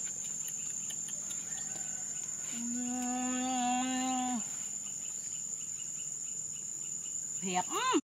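Insects drone steadily on one high note throughout. A person's voice holds a single note for about two seconds near the middle, and a short rising-and-falling vocal sound comes near the end.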